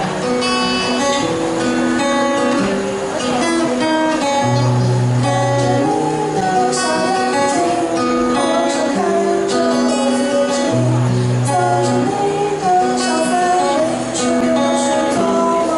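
Live acoustic guitar strummed in a slow pop song, with a singer's voice holding notes over it.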